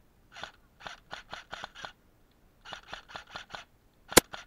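Airsoft electric rifle firing rapid single shots, three strings of quick snapping pops about four a second. A single much louder sharp crack a little after four seconds stands out.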